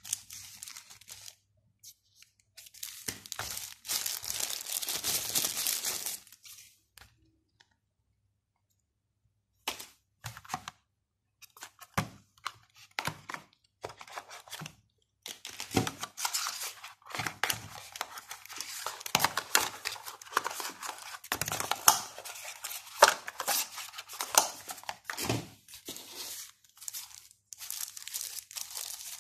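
Thin plastic wrapping crinkling and rustling as phone packaging is handled and unwrapped by hand. There are a few soft knocks of cardboard box parts. The sound comes in bursts, with a silent gap of a few seconds about a quarter of the way in.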